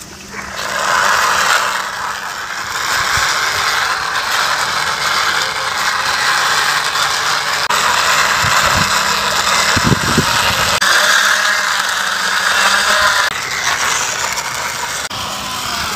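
Plastic wheels of a toy cover van rolling and scraping along a rough painted concrete wall as it is pushed by hand: a steady rolling scrape that starts just after the beginning and eases off near the end, with a few low knocks about ten seconds in.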